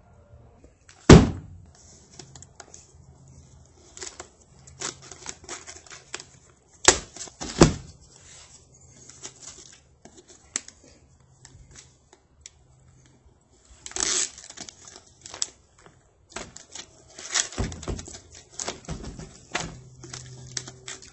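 Bundled brown paper yard-waste bags handled while their plastic strapping is tugged by hand. The paper rustles and crinkles with scattered clicks. There are a few sharp knocks, the loudest about a second in and two more near the middle.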